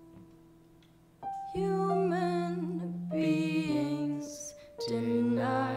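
Jazz song: a few quiet held piano notes, then about a second and a half in a voice starts singing over piano, in two phrases with a short breath between them.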